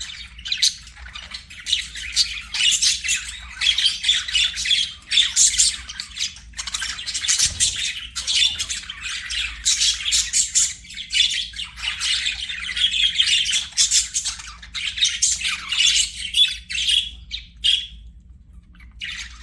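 Budgerigars chattering and warbling, a dense run of quick chirps and squawks that pauses briefly near the end.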